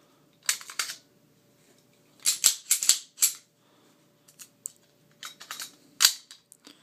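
Metallic clicks and clacks of an unloaded Ruger LCP .380 pistol being handled, its action and parts worked by hand in several short groups of clicks, with the loudest single click about six seconds in.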